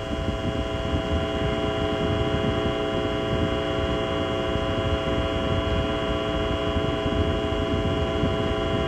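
Low rumble of the Saturn V's five F-1 engines under a steady held chord of many tones that does not change.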